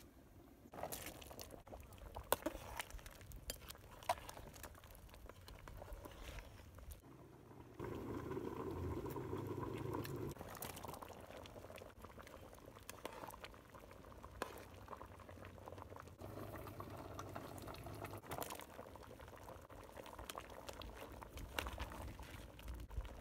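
A pot of thick pumpkin soup boiling over an open wood fire, bubbling with many small scattered pops and clicks. About eight seconds in there is a louder stretch of bubbling lasting two seconds or so.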